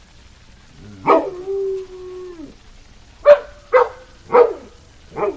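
Dog howling at a passing fire truck's siren: one long held howl about a second in, then four short, sharp barks about half a second apart.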